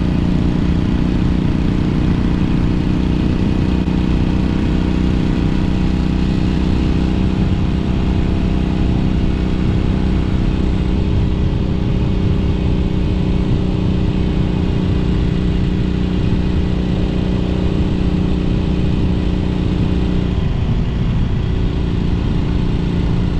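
Honda CA77 Dream's 305cc four-stroke twin-cylinder engine running steadily while the motorcycle cruises down the road, its engine note holding an even pitch, with wind rumble on the microphone.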